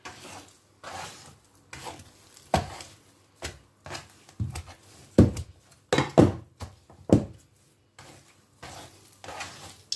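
A hand working soft, sticky, slack yeast dough for sfenj in a wooden bowl, giving irregular squishing strokes and soft thuds against the bowl. The strokes are loudest about five to seven seconds in.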